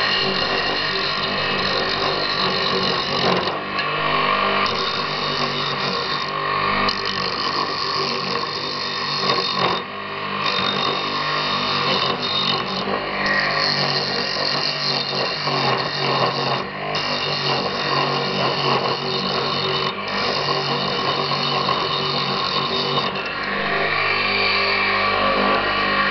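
Homemade wood lathe running with a steady motor hum while an axe blade held on the tool rest cuts shavings from a spinning elm blank; the hiss of the cut comes and goes in stretches of a second or two. The elm is soft, rotten and beetle-eaten, so the axe cuts poorly and skips a little.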